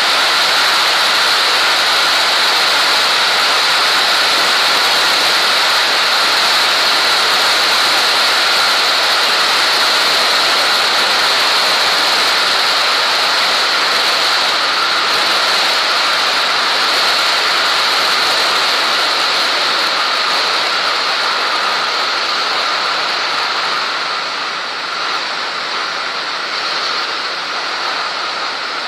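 Steady rush of a Cessna T210's engine, propeller and airflow in flight, with a steady high hum running through it; it eases a little near the end.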